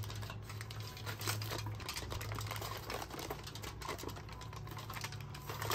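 Aluminium foil crinkling and crackling in irregular little clicks as it is lifted and rolled by hand, over a steady low hum.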